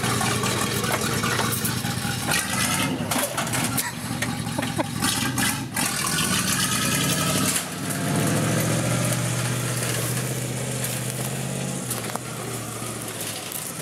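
Pickup truck's V8 engine running with knocks and rattles in the first half, then pulling steadily and loudly for about four seconds before easing off near the end.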